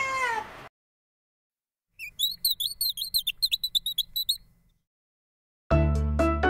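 A cat's meow trailing off at the very start, then small birds twittering in a quick run of high chirps for about two and a half seconds. Keyboard music starts near the end.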